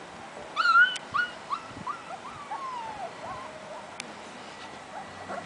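Golden retriever puppies whimpering and yipping: a loud high yelp about half a second in, then a run of short high whines, one of them drawn out and falling in pitch, dying down after about three and a half seconds.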